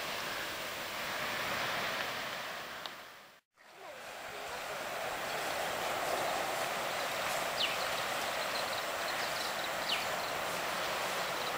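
Outdoor ambience: a steady rushing hiss with a few faint, short, high falling chirps. The sound cuts out briefly about three and a half seconds in, then fades back.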